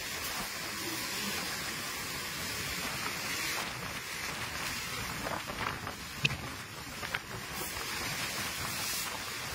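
Storm-surge seawater surging in and splashing over a concrete floor, a steady rushing hiss of water and spray with a few faint knocks in the middle.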